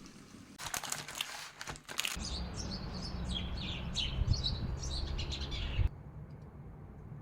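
Small birds chirping, many quick high chirps over a low outdoor rumble, beginning abruptly about two seconds in and cut off suddenly near six seconds. A brief burst of noise comes just before the birdsong.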